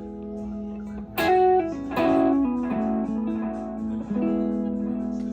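2017 Gibson SG electric guitar played through a 1965 Magnatone M2 valve amp: a held chord rings, with new chords or notes struck about a second in, at two seconds and again near four seconds, each ringing out.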